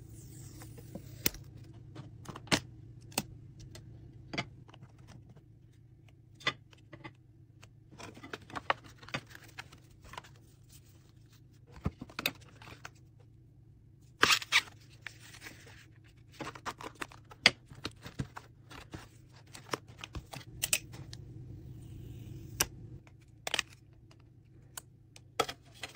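iPod touch packaging being opened and handled: the clear plastic case and cardboard insert give many sharp clicks and taps, with a few short scratchy rustles of plastic and card.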